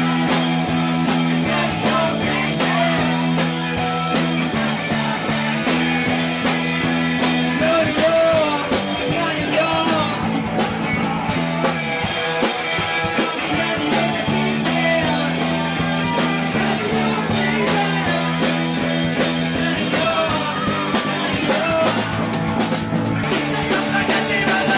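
Live rock band playing a loud song, with electric guitar, bass and drum kit and a singer's vocals, the bass line repeating in a steady pattern.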